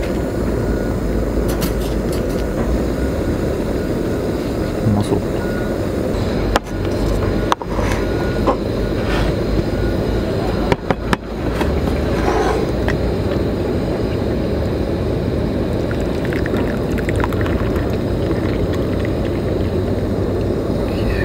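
Steady low roar of a camping gas burner running under a mesh grill, broken by a few brief dropouts, with faint clicks of things being handled.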